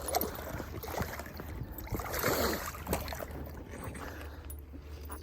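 Irregular water splashing and rustling as a hooked largemouth bass is played in, over a steady low rumble.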